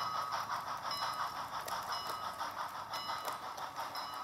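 Model train freight cars rolling along sectional toy track, with irregular light clicks as the wheels cross the rail joints, over music.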